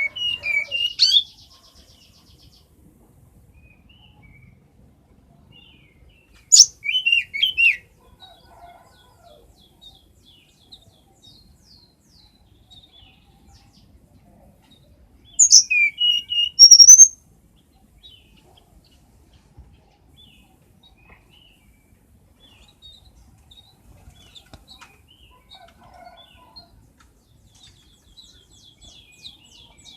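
Tledekan gunung songbird singing: three loud phrases of high, quick, sweeping chirps, each about one to two seconds long, near the start, around six seconds in and around fifteen seconds in, with faint chirps between and a faint rapid trill near the end.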